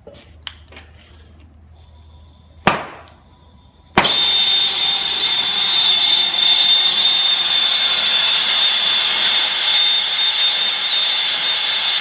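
Hand-held brazing torch being lit. A click and a faint gas hiss come first, then a sharp pop about two and a half seconds in. At about four seconds the flame catches with a sudden loud whoosh and settles into a steady roar with a thin high whistle.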